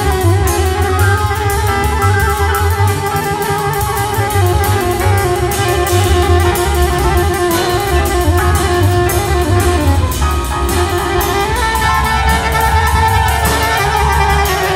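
Freely improvised jazz-like ensemble music: a low plucked double bass line under drums with busy cymbal and small-percussion strokes, with long held melodic tones in the middle range.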